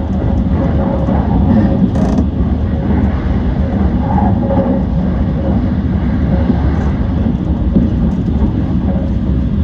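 E235-series electric train running along the line, heard from inside the front car: a steady rumble of wheels on rail. A brief sharp click comes about two seconds in.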